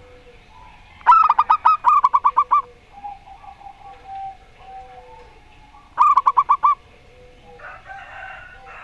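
Zebra doves (perkutut) cooing back and forth: a fast run of short, loud coos about a second in, softer and lower coos after it, and another quick run of coos about six seconds in.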